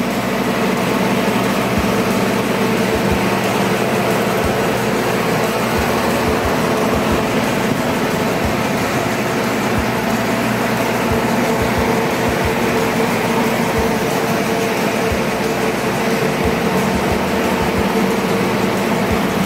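Several carpet-drying fans, among them a Dri-Eaz Dri-Pod air mover, running steadily: a constant rush of air with a steady motor hum, drying a wet rug.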